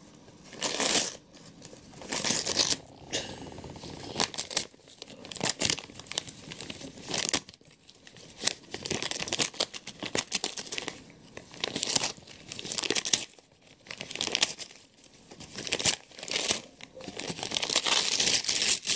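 A dog tearing and crinkling gold wrapping paper off a present with its mouth, in short irregular bursts of ripping every second or two.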